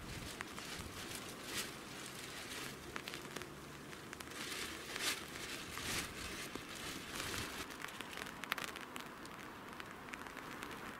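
Light rain pattering, with irregular taps and crackles of drops landing close by.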